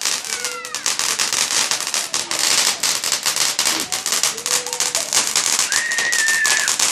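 Fireworks crackling in a dense, rapid run of pops, with a few short high tones over them and one longer steady high tone near the end.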